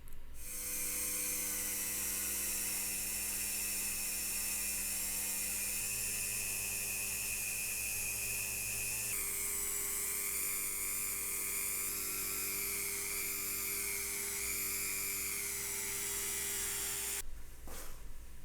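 A small high-speed power-tool motor running steadily with a whine, shifting slightly in pitch about halfway and cutting off abruptly near the end.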